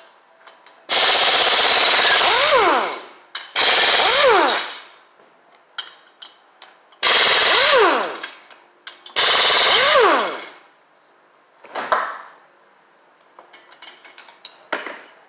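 Power impact wrench run in four long bursts, its motor winding down in pitch each time the trigger is let go, undoing fasteners during an engine teardown. A shorter, softer burst follows near the end.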